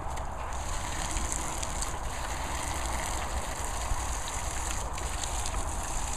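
Jet of water from a hose hissing steadily and splattering on the grass and into a paddling pool, with crackly spatters as a dog snaps at the stream.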